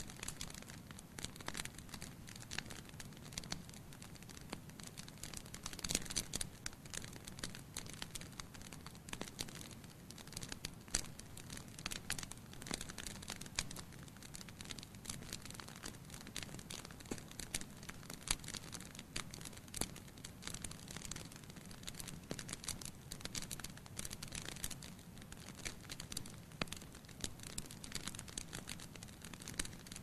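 Wood logs burning in a fireplace, crackling and popping irregularly, with a steady low rumble underneath.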